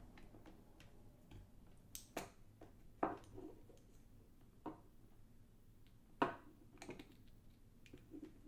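Scattered light clicks and taps, about seven in all, from handling a multimeter, its test leads and a capacitor.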